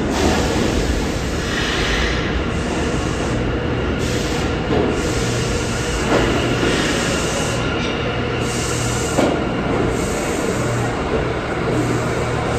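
R179 subway train pulling into the station and rolling along the platform: a steady rumble of wheels on rail, a low hum that comes and goes from a few seconds in, and a few single knocks as the cars pass over the rail joints.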